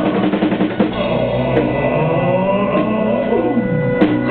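Live band playing a pop song, with held and gliding melodic lines over drums and a sharp drum hit near the end.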